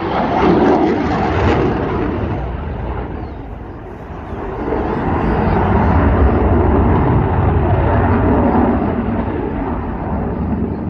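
Eurofighter Typhoon's twin EJ200 turbofan jet engines, a loud deep jet rumble that eases about four seconds in and swells again as the jet comes round.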